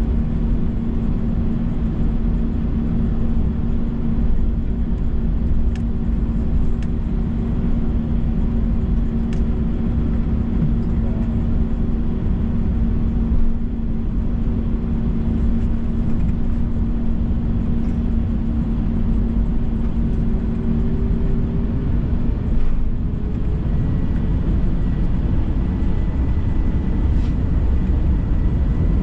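Airbus A321 cabin noise on the ground: the jet engines run steadily with a low rumble and a steady hum. About two-thirds of the way in the hum drops out and higher whines start to rise slowly, as the engines begin to spool up.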